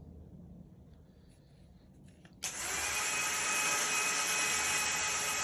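An electric power tool's motor switches on suddenly about two and a half seconds in and runs steadily at full speed with a high whine.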